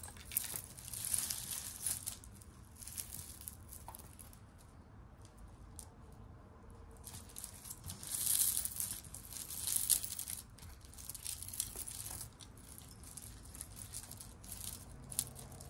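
Tangled costume-jewelry necklaces, metal chains and beads, being picked apart by hand: faint, intermittent clinking and rustling, a little louder about eight and ten seconds in.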